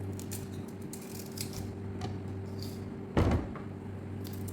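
Knife work on a peeled cassava root: small clicks and scrapes as the hard centre core is cut out, with one heavy thud about three seconds in. A steady low hum runs underneath.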